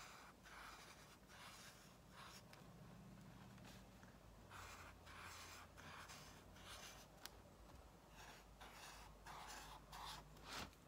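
Felt-tip marker drawing wavy lines on a journal's paper page: a run of faint, short scratchy strokes, about two a second, with brief pauses between groups.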